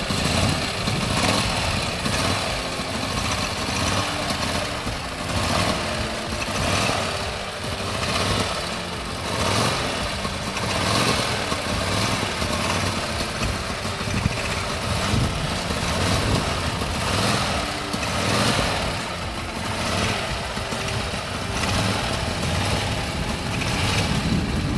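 Vintage racing car's JAP engine running, its revs rising and falling every second or two.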